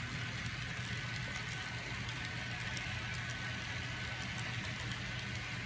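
HO scale model freight train rolling past on the track: a steady low hum with faint, irregular clicks from the cars' wheels.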